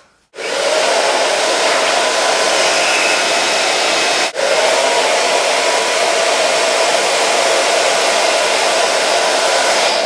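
Babyliss The Pro Red hair dryer with an AC motor blowing steadily, switched on just after the start, with a short dip about four seconds in.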